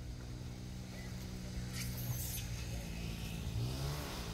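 A motor vehicle engine running with a steady low hum, its pitch rising near the end as it speeds up.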